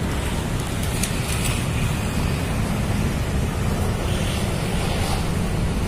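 Steady low outdoor rumble with a fainter hiss above it. No distinct event stands out.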